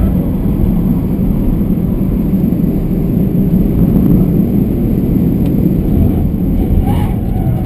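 Steady in-cabin rumble of a BMW 320d touring (F31) at speed on track: its four-cylinder turbodiesel running under load, mixed with heavy tyre and road noise. A brief higher-pitched sound comes about seven seconds in.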